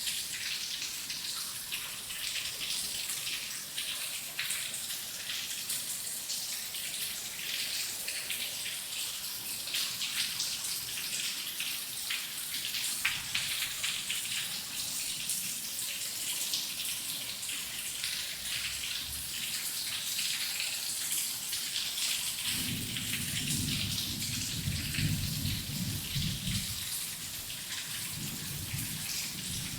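Heavy rain falling in a dense patter of drops. About 22 seconds in, a low rumble of thunder comes in; it breaks off briefly and then returns near the end.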